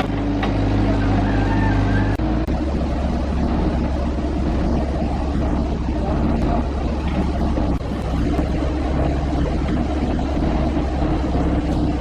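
A motor engine running steadily, its note shifting about two seconds in.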